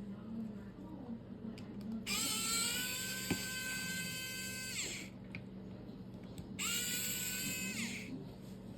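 Small high-speed electric motor whirring in two runs, about three seconds then about a second and a half. Each time it spins up to a steady high whine and winds down when it stops, with a single sharp click during the first run.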